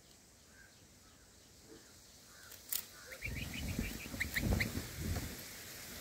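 Red-whiskered bulbul nestlings begging as the parent comes to feed them: a quick run of about seven short, high, rising cheeps partway through, over a low rustling rumble that starts just before them.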